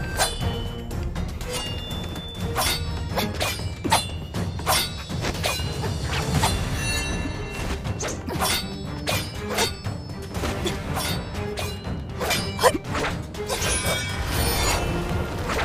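Music with many sharp sword clashes, several of them leaving a short metallic ring.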